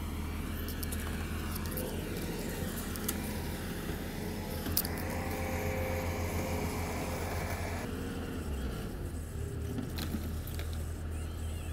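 Compact track loader (skid steer) engine running steadily, with a few sharp knocks and rattles from debris being moved.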